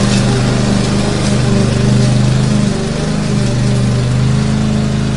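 Lawn mower engine running steadily at an even pitch while mowing grass, with small swells and dips in level.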